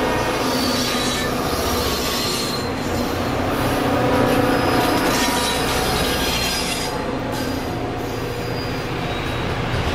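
Freight train of loaded autorack cars rolling past, with steel wheels squealing on the rail over a steady rumble.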